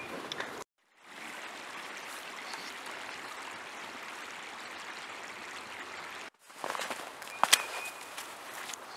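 Steady rushing of a creek flowing over several seconds, framed by boots crunching in snow: a few crunching steps at the start and a close burst of crunching steps in snow near the end, one sharp step the loudest.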